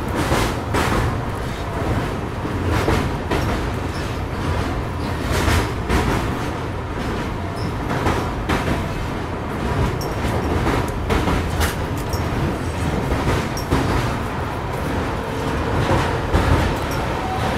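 Passenger train of a diesel-hauled Indian Railways express running along the track: a steady rumble from the coaches, broken by irregular sharp clacks of the wheels over rail joints.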